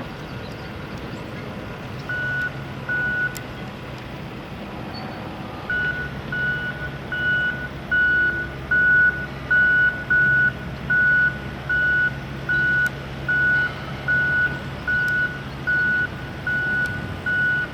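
Reversing alarm of a construction vehicle beeping steadily at about one beep every 0.8 s, over the low hum of its engine. Two beeps come about two seconds in, a pause follows, and the beeping resumes unbroken from about six seconds in.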